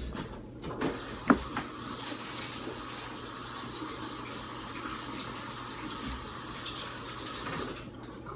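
Water tap running steadily for about seven seconds, with one sharp click just after the flow starts. The flow cuts off suddenly near the end.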